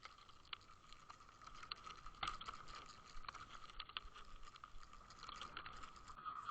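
Underwater sound from a towed fish camera: water rushing and bubbling with scattered crackles and clicks over a steady high hum.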